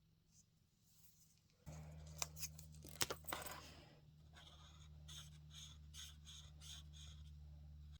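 Faint craft-table handling: a few sharp clicks and taps with light scratching on paper, over a low steady hum that starts abruptly about a second and a half in.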